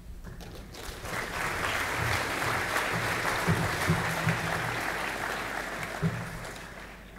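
Audience of students applauding, swelling about a second in and dying away near the end.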